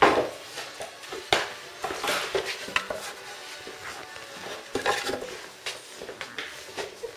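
Irregular clatter of sharp knocks and scrapes on a tiled floor as Czechoslovakian wolfdog puppies scramble about around a wooden stepladder. The loudest knock comes right at the start.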